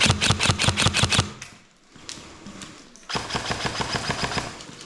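Airsoft gun firing full-auto: a rapid burst of about ten shots a second in the first second or so, then, after a short lull, a second, quieter burst of rapid fire from about three seconds in.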